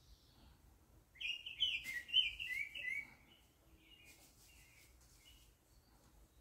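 A songbird singing: a quick run of chirping notes lasting about two seconds, then a few fainter notes.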